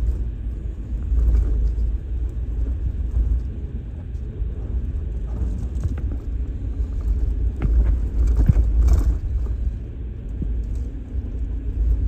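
A vehicle rumbling low and steady while it drives, heard from on board, with a few short knocks and rattles.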